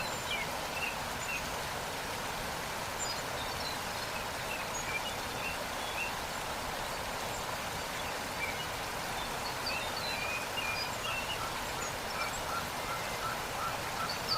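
Waterfall rushing steadily, with small birds chirping throughout. Near the end a bird repeats a short note about three times a second.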